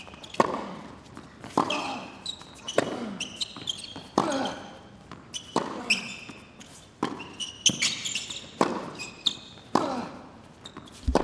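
Tennis rally on a hard court: racket strikes of the ball alternating between the two players about every 1.3 seconds, each ringing briefly in the stadium, with short high squeaks of tennis shoes between shots.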